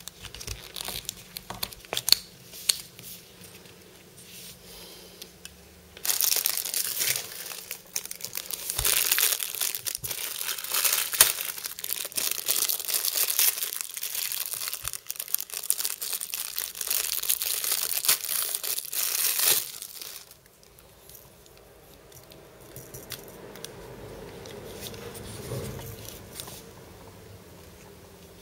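Clear plastic wrapper crinkling and tearing as a spring-based pop-up toy is pulled out of its bag, loud and continuous from about six seconds in until about twenty seconds. Before and after, light clicks and taps of the plastic toys being handled.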